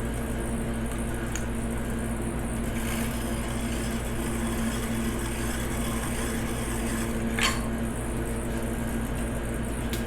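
Small electric piston-ring gap grinder running with a steady hum while a ring's end gap is ground to size a little at a time. A brief sharp scrape comes about three-quarters of the way through.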